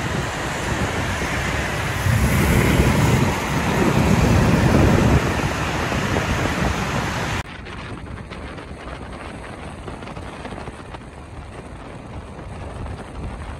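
City street traffic: a steady noise of passing road vehicles, swelling louder for a few seconds as something heavier goes by. About seven seconds in it cuts suddenly to a quieter, steadier traffic hum.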